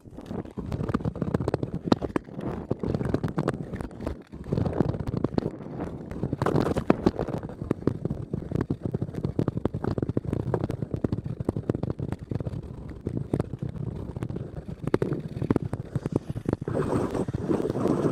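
Ice skate blades scraping and rattling over rough, frost-covered natural ice, close to the microphone, with a dense crackle of small knocks. Wind buffets the microphone.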